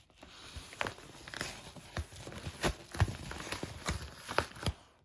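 A series of irregular knocks and taps, about a dozen in five seconds, over a steady hiss.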